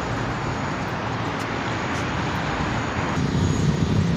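Steady roar of road traffic. About three seconds in it changes to a lower rumble.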